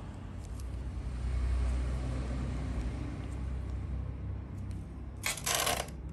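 A steady low background rumble with a few faint clicks, and a short loud noise lasting about half a second near the end.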